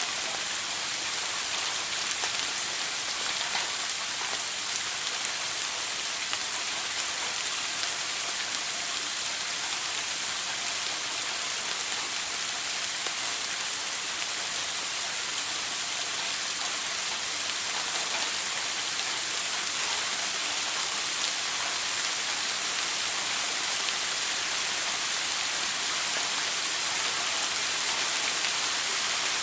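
Shower running steadily: a constant high hiss of water spray falling on a hard surface, with fine drop patter.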